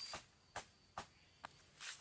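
Footsteps crunching on dry forest litter: four short, sharp crackles about half a second apart, then a brief rustle near the end.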